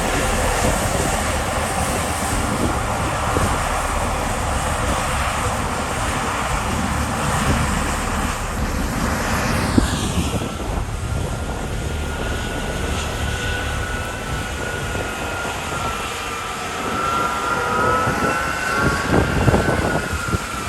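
Combine harvester running: dense, steady machinery noise, with a high whine that sweeps sharply down about halfway through and then holds as a steady whine.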